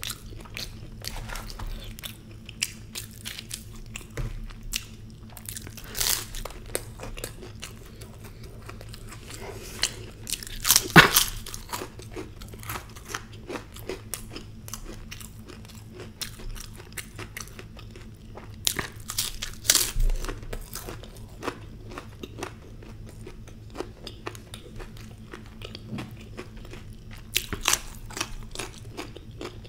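Close-miked eating: chewing and biting mouthfuls of puri with spiced potato curry, wet mouth clicks and smacks with sharp crisp crunches now and then, the loudest about 11 seconds in.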